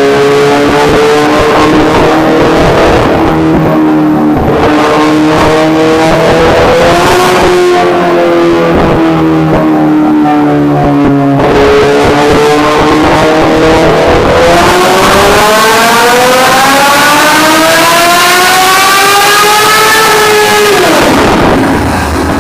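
Honda CBR1000RR-R SP's inline-four engine revving on a dyno. The revs wander up and down and drop abruptly about halfway, then climb steadily in one long pull for about five seconds before the throttle closes and they fall away near the end.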